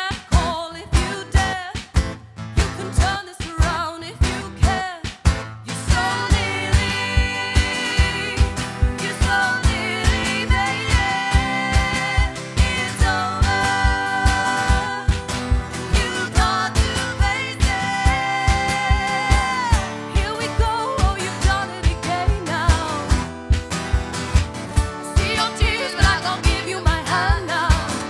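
Live band playing an instrumental break of a pop-rock song: a steady drum beat at about two hits a second, filling out about six seconds in with a sustained, wavering melodic lead line over it.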